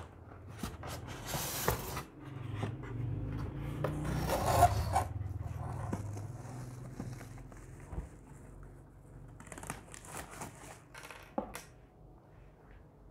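Plastic bag and packing material rustling and scraping as they are handled inside a cardboard box, in irregular bursts. The loudest bursts come in the first five seconds, followed by quieter handling and a few light knocks.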